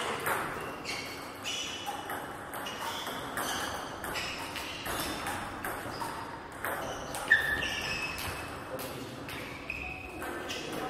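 Table tennis ball clicking in a string of irregular bounces and hits, each with a short high ping. One click a little past halfway is sharper and louder than the rest, and near the end the hits come as a rally between two paddles.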